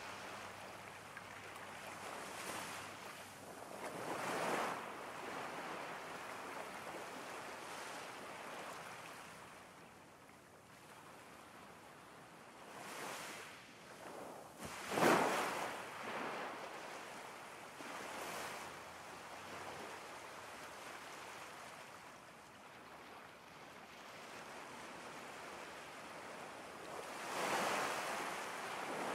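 Ocean waves washing in: a steady rushing with swells that rise and fall, the largest about halfway through and another near the end.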